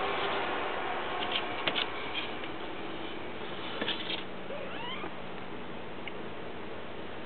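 Kitten mewing: a thin, rising cry about two-thirds of the way through, over a steady hiss with a few light clicks earlier on.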